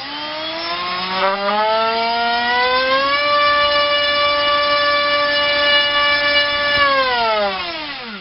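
RCinpower QAV2206 1900KV brushless motor spinning a TGS 6x3 propeller on a 3-cell battery: a whine that rises in pitch as the throttle opens over about three seconds, holds steady at full throttle, then falls away as it winds down near the end.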